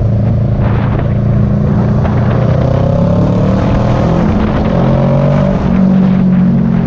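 Sport motorcycle's engine running under way, its pitch rising a couple of times as it accelerates.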